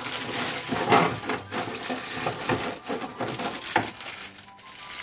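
Clear plastic bags and packaging crinkling and crackling in the hands as small plastic figure parts are unwrapped, with light knocks of hard plastic pieces, loudest about a second in.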